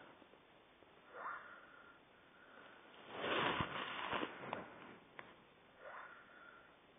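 A sleeping person snoring, with snorting breaths through the nose: a short one about a second in, a longer and louder one around the middle, and another short one near the end.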